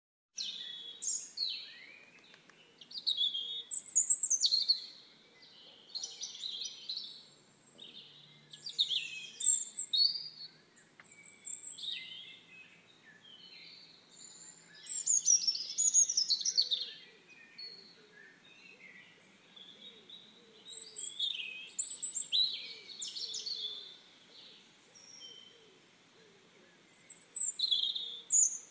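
Birds chirping and calling: clusters of short, high, quickly gliding notes every second or two, over a faint steady background hiss.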